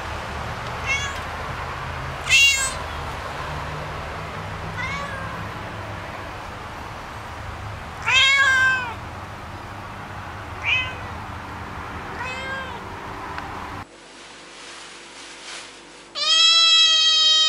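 Domestic cats meowing. One cat gives about six separate meows over a steady low hum. After a cut, a young cat starts a long, loud meow near the end.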